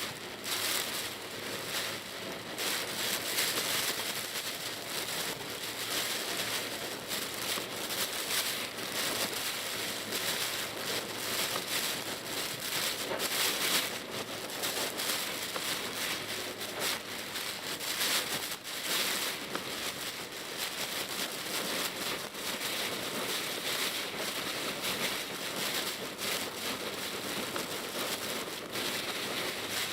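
Heavy typhoon rain striking a Pajero Mini's roof and windscreen, heard from inside the car while driving: a dense, steady crackle of drops.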